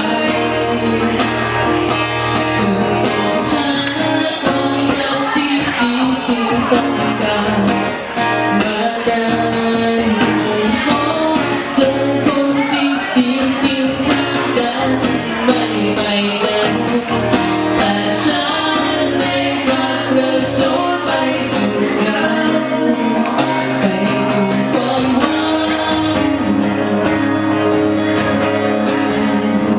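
A band playing a song, with singing over guitar.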